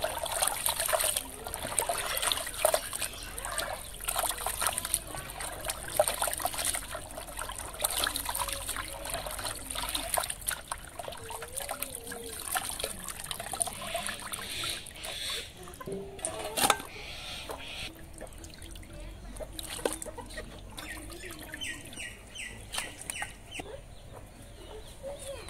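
Water splashing and sloshing in a steel bucket as raw chicken pieces are rubbed and washed by hand. The splashing thins out and gets quieter over the last several seconds.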